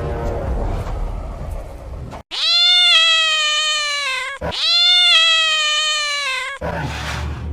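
Two long meow-like cries in a row, each about two seconds, high-pitched and sliding slightly down in pitch. Before them a busy mix of music and noise plays, and it returns near the end.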